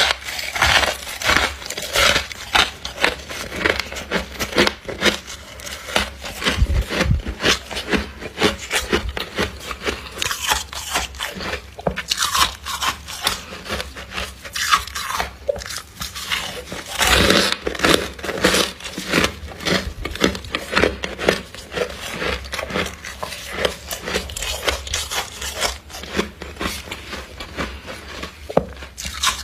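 Frost and ice from a humidifier being bitten and crunched: a continuous, irregular run of crisp crunches and crackles, with louder clusters now and then.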